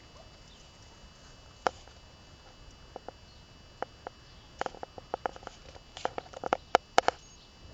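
Dogs barking: short, sharp barks, a few scattered at first, then a quick irregular run of barks from about halfway through.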